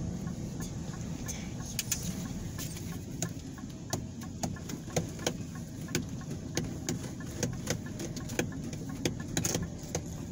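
Car interior while driving slowly: a steady low rumble of engine and tyres, with a string of short, sharp clicks about every half second.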